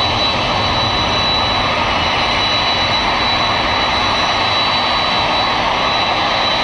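Jet engine noise on an airport ramp: a loud, even rush with a thin, steady high whine running through it.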